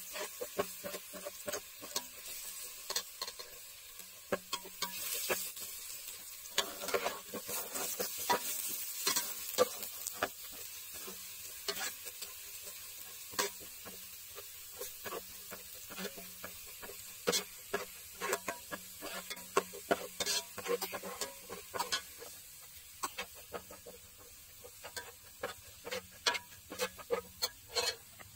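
Chopped garlic sizzling in hot oil as it fries golden in a metal pot. A metal spoon stirs it, scraping and clinking against the pot many times in quick irregular strokes.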